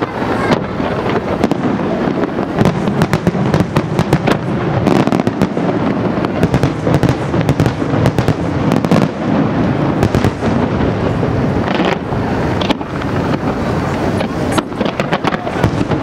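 Fireworks display: aerial shells and crackling stars going off in rapid, overlapping bangs and crackles, a dense, continuous barrage.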